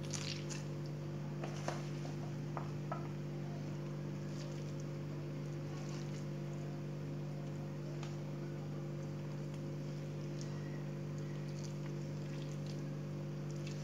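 A steady low hum, with faint wet squishes and a few light clicks as hands press a chopped filling into a slit lamb spleen.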